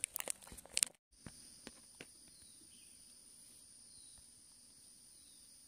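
A few sharp clicks and knocks in the first second, then, after a brief cutout, insects droning steadily at a high pitch.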